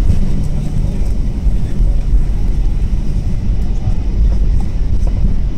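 Inside the cabin of a Boeing 737-800 with its CFM56 jet engines running: a loud, steady low rumble as the airliner moves along the ground.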